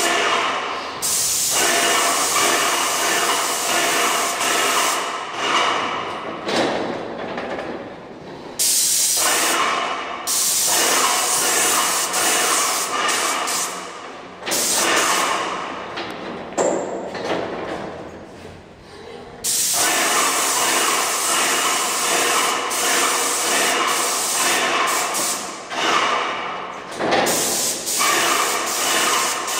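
Paint sprayer hissing in long bursts of a few seconds each, cutting off and starting again abruptly several times, with a steady whine under the spray.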